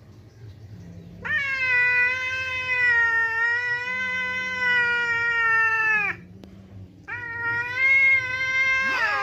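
Domestic cat yowling: a long drawn-out wail of about five seconds, then a second one starting about seven seconds in. It is a territorial yowl at an intruding cat.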